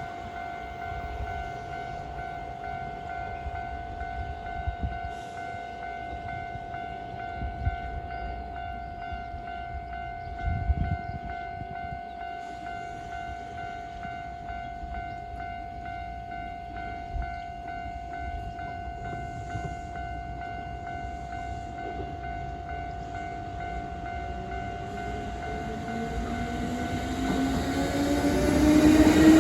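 Japanese railway level-crossing warning bell ringing steadily at one pitch. Near the end a train approaches and its noise grows quickly louder, with a rising hum.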